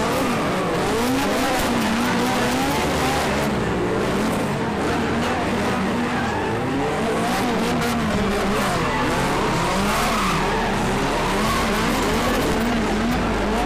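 Car engine revving up and down over and over while its tyres squeal and skid through a drift.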